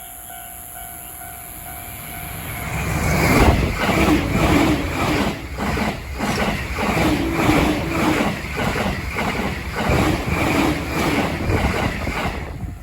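A Joban Line train passing at high speed, over 120 km/h. Its wheels clack rapidly over the rail joints, about two to three clacks a second. The train comes in about two and a half seconds in and cuts off abruptly just before the end.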